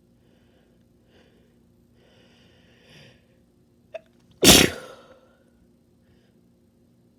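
A person sneezing once: a single loud, wet, spraying sneeze about four and a half seconds in. It comes after a second or so of breathy build-up and a short catch of breath.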